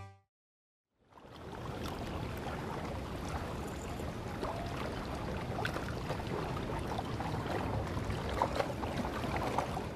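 Steady outdoor background noise, an even hiss with a few faint small ticks, starting after about a second of silence.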